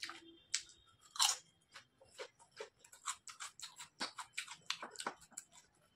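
Close-up crunching and chewing of crunchy snack chips: many short, sharp crunches in an uneven rhythm, the loudest about a second in.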